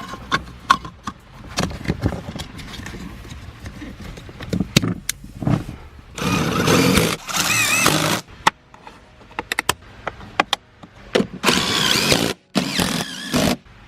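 Workshop clicks and knocks, with two bursts of a small electric motor whining for about two seconds each, about six and twelve seconds in.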